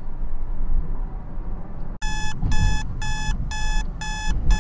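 Digital alarm clock beeping: six short, identical electronic beeps about two a second, starting about halfway in, over a low rumble.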